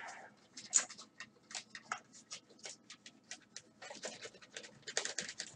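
A cloth rubbing over a metal cover panel, heard as a quick run of short, irregular scratchy strokes and light knocks as the panel is handled, with one sharper tap a little under a second in.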